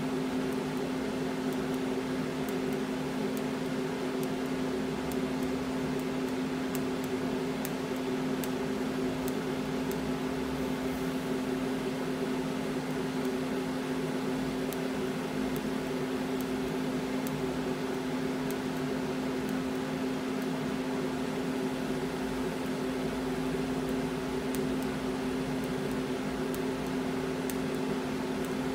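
TIG welding arc from an Everlast PowerTIG 200 DV inverter welder, a steady electric buzz over a hiss with faint crackling ticks, as filler rod is laid on to build up the end of a steel part.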